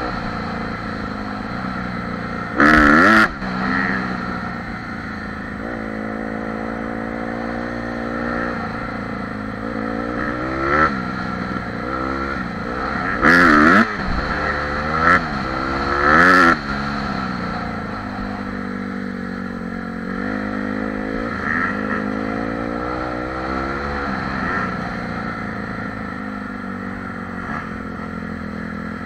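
Honda CRF dirt bike's four-stroke engine revving up and down over and over as the bike rides along a trail, the pitch climbing and dropping with throttle and gear changes. Several loud clattering knocks cut in over the engine, around 3 seconds in and three times between about 13 and 16 seconds.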